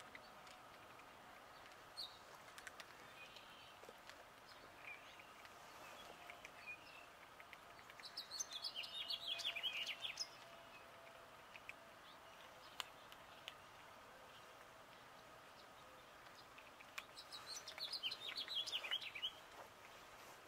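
A small songbird sings two short phrases of quick, high notes, about eight seconds in and again near the end, over a faint outdoor background.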